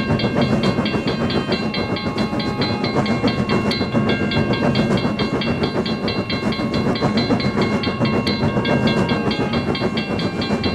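Train running along the rails with a steady rumble and clatter. Over it, a railroad crossing alarm rings in a fast, even rhythm.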